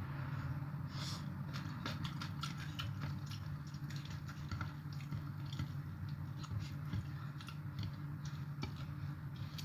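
Eating by hand: fingers picking through rice noodles and papaya salad on a plate, with scattered small wet clicks and chewing, over a steady low hum.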